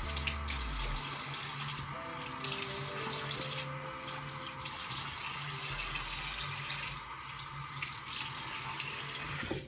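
Bathroom sink tap running steadily while a face is washed and rinsed under it; the water shuts off suddenly at the very end.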